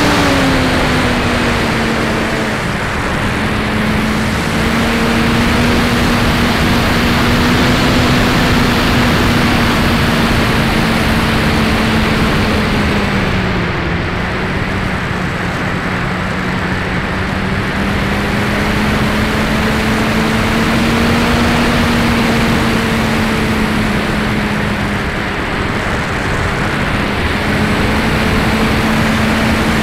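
Electric motor and spinning propeller of a Max-Thrust Lightning 1500 RC glider, heard from a camera on board: a steady hum over rushing air. The pitch drops just after the start, sags about halfway through, climbs back, then dips briefly near the end.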